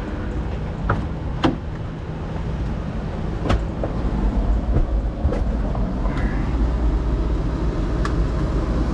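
A steady low vehicle rumble, with several sharp clicks and knocks scattered over it.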